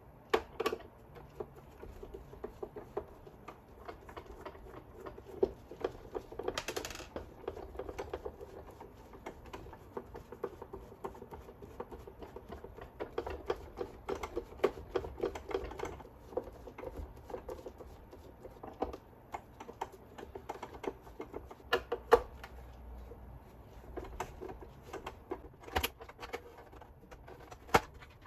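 Irregular small clicks, taps and rattles of a plastic gyro stage mechanism being taken apart by hand, with a brief hiss about seven seconds in.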